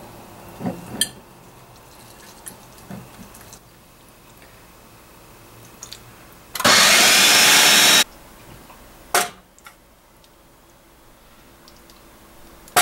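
Countertop food processor motor running in one burst of about a second and a half, blending salsa ingredients. A few light knocks and clinks of kitchenware come before and after it.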